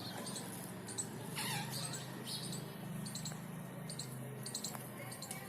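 Pet parrot making soft, scattered squeaks and chirps, with one short call that falls in pitch about a second and a half in.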